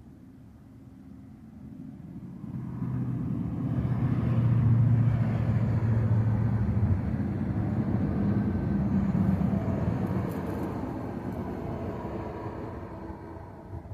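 A low mechanical rumble with a steady hum, swelling over a couple of seconds, holding, then slowly fading away, as a passing vehicle does.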